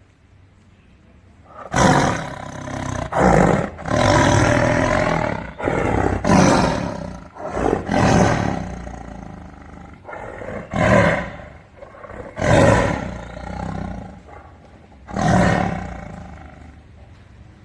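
Tiger roaring repeatedly: a run of loud roars about a second long each, separated by short pauses, starting about two seconds in.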